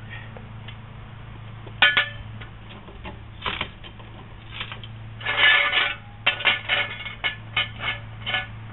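Steel jack stand being set down on concrete and adjusted under the car: metal clanks and ringing clinks, one sharp clank about two seconds in, then a quick run of about a dozen clinks over the last three seconds.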